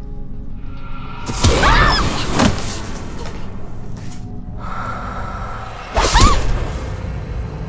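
Horror film score: a low, steady drone broken by two sudden loud stingers, about a second and a half in and again near six seconds, each a hard hit carrying a shrill, wavering screech that slides up and down.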